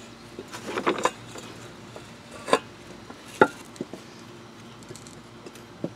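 Metal clanks and clicks from a pipe wrench working a stuck steel water pipe out of a removed oil cooler, with the wrench then set down on concrete: a rattling cluster of clicks about a second in, then a few sharp clanks, the loudest just past the middle.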